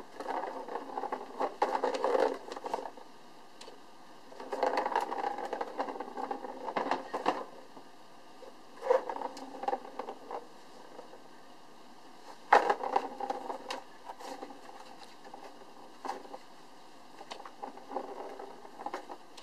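Plastic ball rolling around the enclosed track of a circular cat scratcher toy, batted by a kitten's paw. It comes in five rolling runs of one to three seconds each, with sharp clicks as the ball is struck or knocks against the track. The sharpest click is about twelve seconds in.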